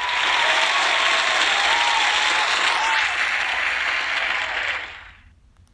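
Crowd applauding and cheering, a sound effect that swells in, holds steady and fades out after about five seconds, with a few faint voices rising out of it.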